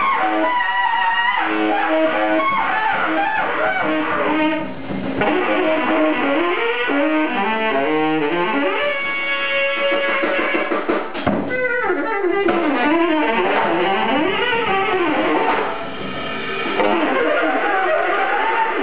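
Live free-improvised music: a saxophone plays bending, gliding lines over drums and a string instrument, with loudness dipping briefly twice.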